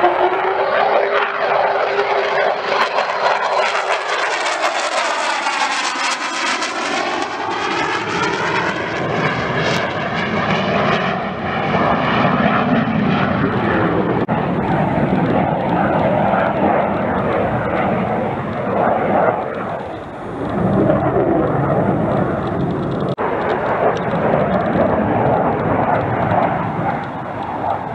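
Jet noise of a single Lockheed Martin F-35 and its F135 turbofan engine flying past: a whine falls in pitch in the first few seconds, a sweeping, phasing rush follows as it passes, then a rough, steady rumble as it climbs away.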